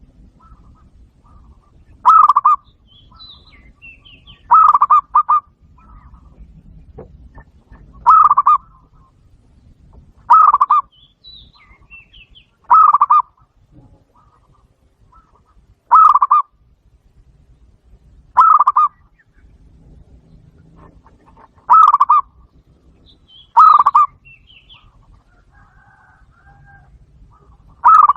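Zebra dove calling: a short burst of rapid cooing notes, repeated every two to three seconds, with faint higher bird notes in the gaps.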